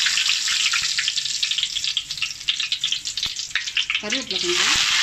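Whole spices (fennel seeds, cinnamon, cloves) frying in hot oil, crackling with many sharp pops. About four seconds in, the popping gives way to a steady, even sizzle.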